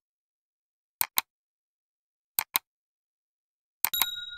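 Mouse-click sound effects of an animated subscribe-button end card: three quick double clicks, about a second and a half apart, then a bright notification ding that starts with the last pair and rings on.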